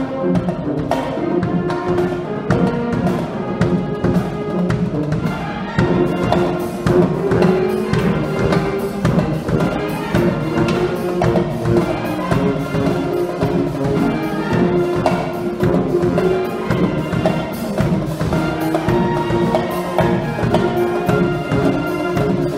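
School brass band playing: sousaphones, trumpets and other horns holding sustained chords over a steady drum-kit beat, the brass getting louder about six seconds in.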